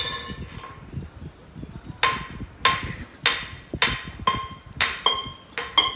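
Repeated sharp knocks on a hard object, each leaving a short ringing tone. They come about two a second, starting about two seconds in.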